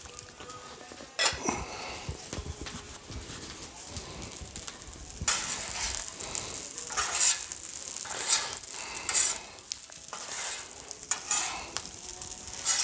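Fried rice and vegetables sizzling on a Blackstone flat-top steel griddle while being stirred and scraped across it, with sharp scrapes at irregular intervals over a steady sizzle.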